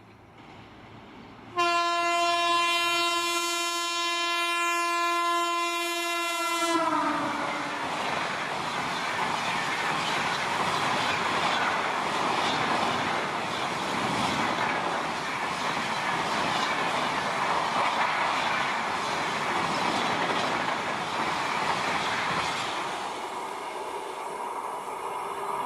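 Indian Railways electric express train sounding a long single horn blast of about five seconds as it approaches, the pitch dropping as it reaches and passes. It then rushes past at high speed with continuous wheel and rail clatter for about fifteen seconds, fading near the end.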